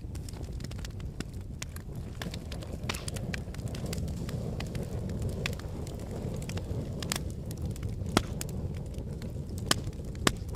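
Volcanic eruption or lava flow: a steady low rumble with many sharp cracks and pops scattered through it, a few of them louder near the end.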